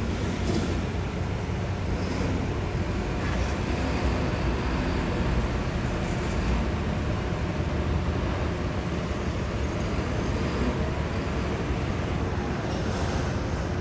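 Steady outdoor background noise: an even low rumble with hiss above it and no distinct events.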